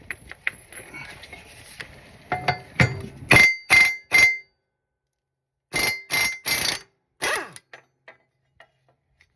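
Air impact wrench fired in a series of short bursts, about eight, hammering a mower blade bolt loose, with a metallic ring from the blade. Light clinking of handling comes before the bursts.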